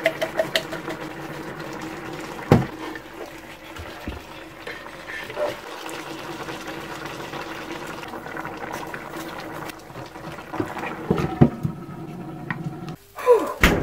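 Chicken boiling in water in an electric multicooker pot: a steady bubbling, with a few clinks as a slotted spoon stirs it and a clatter near the end as the lid is put on.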